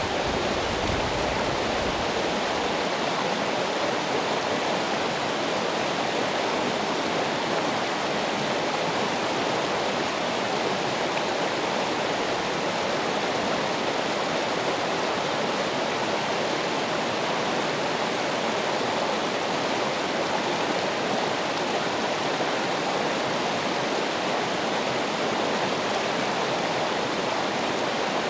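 Running water: a steady, even rush like a stream or small waterfall.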